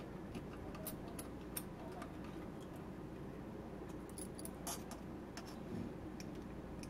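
Faint scattered clicks and ticks of a small screwdriver and tiny screws being handled and driven into the end plate of a 2.5-inch external hard drive enclosure, over a low steady hum.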